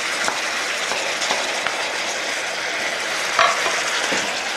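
Pieces of beef sizzling in hot oil in a frying pan as they are stirred with wooden spoons, browning for a stew, with a steady sizzle and a few light clicks and knocks, the sharpest about three and a half seconds in.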